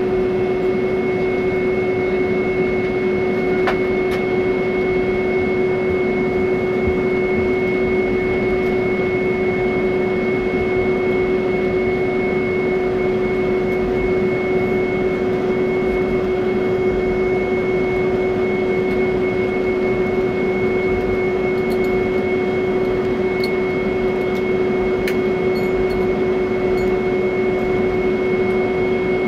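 Airliner cabin noise while taxiing: the jet engines at idle and the cabin air system make a steady hum with a few fixed whining tones, and a few faint ticks.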